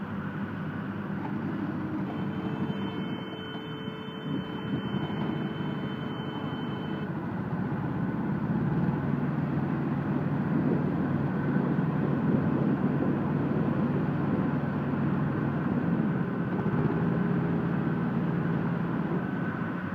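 A mini round hay baler working with its driving engine running steadily. The sound grows louder about eight seconds in.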